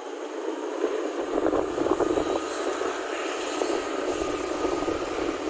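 Moving motor scooter: steady engine and road noise, with wind rumbling on the microphone from about a second in.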